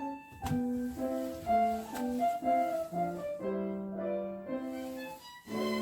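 Background music: a piano melody in a classical style.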